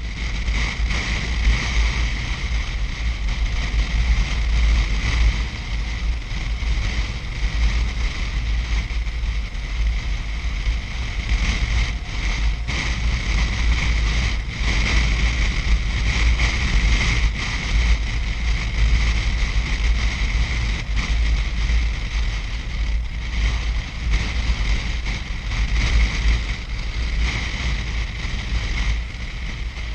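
Steady rush of wind buffeting the microphone of a BMW R1150 RT motorcycle riding at speed, with a heavy fluctuating low rumble and the bike's running noise underneath.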